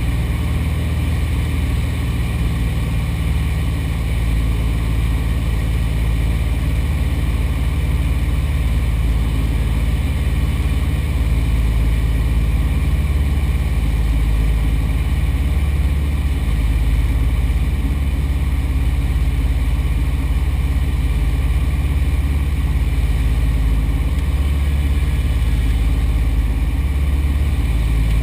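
Small plane's piston engine and propeller droning steadily at a constant level, with a heavy low rumble.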